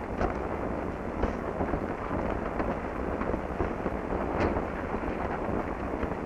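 Steady rushing noise with a low hum underneath and a few scattered faint clicks.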